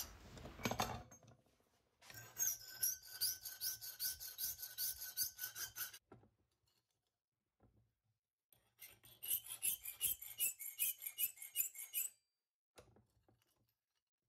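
Half-round hand file rasping across the hacksaw-cut edge of a piece of stainless steel sheet, truing it up. Two bouts of quick strokes, about four a second, each lasting some four seconds with a short pause between.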